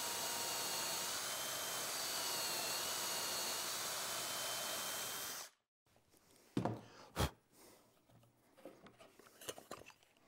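Cordless drill boring a hole into the edge of plywood through a drilling guide, running steadily with a faint whine and stopping suddenly about five and a half seconds in. A few knocks and clicks follow.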